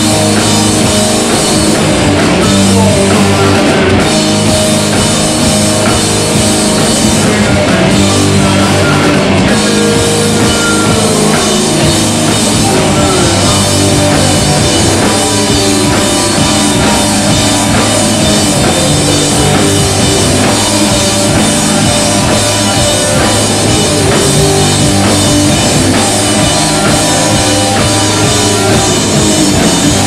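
Live rock band playing loud and steady: two electric guitars over a drum kit.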